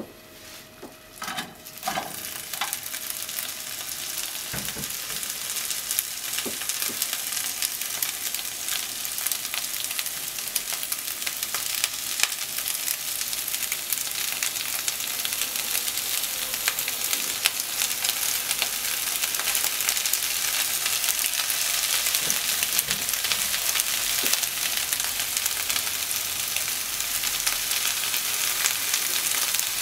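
Shredded cabbage and enoki mushrooms sizzling in hot oil in a non-stick frying pan. A few knocks come near the start, then the sizzle builds and keeps getting slowly louder.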